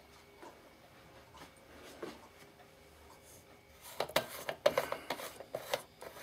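Faint room tone, then from about four seconds in a run of rubbing, scraping and clicking as a hand grips a compact fluorescent bulb and twists it out of its screw lamp holder.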